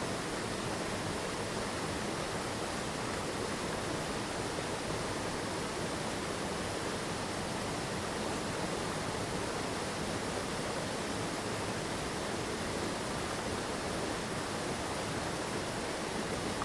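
Steady rushing of a mountain stream's water falling and running over rocks.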